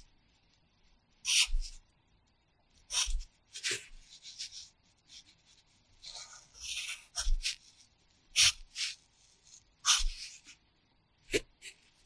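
Pencil writing on paper: a series of short scratching strokes with brief pauses between them as hiragana characters are traced in a practice workbook resting on a pad.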